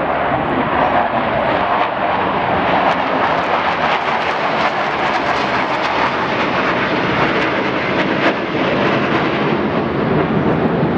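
Aircraft flying overhead: steady, loud engine noise with no clear rise or fall.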